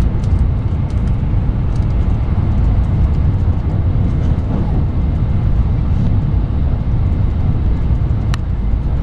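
Cabin noise of a train running at speed: a steady, loud low rumble of wheels on rail and the carriage moving, with a few faint clicks and one sharp click near the end.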